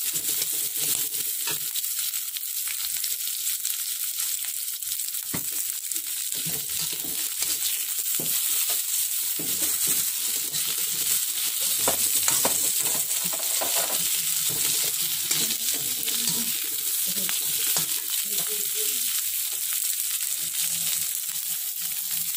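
Sliced chillies and shallots sizzling in hot oil in a wok, with a metal spatula scraping and clicking against the pan as they are stir-fried. The sizzle is a steady hiss and the spatula strokes come irregularly throughout.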